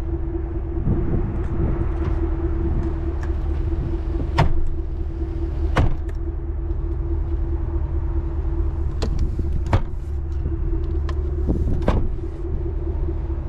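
A 2023 Chevrolet Tahoe Premier being driven, its 5.3 L V8 and road noise making a steady low rumble with a steady drone. Five or so sharp clicks or knocks come at irregular intervals, the first about four seconds in.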